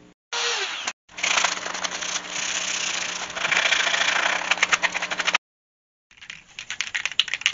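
A few seconds of steady mechanical noise with a low hum, which cuts off abruptly. After a short gap, a can of spray paint is shaken, its mixing ball rattling rapidly inside.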